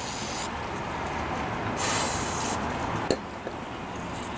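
Aerosol carburetor cleaner sprayed in two short hissing bursts, the second and louder one about two seconds in, followed by a single sharp click.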